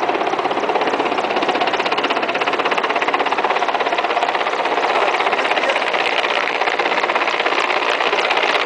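Mil Mi-17 helicopter flying low overhead, its main rotor beating in a fast, steady throb over the turbine noise.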